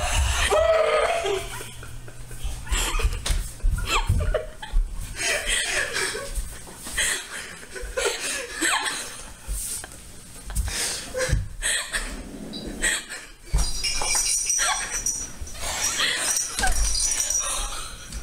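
A woman laughing and crying with emotion, in irregular breathy bursts.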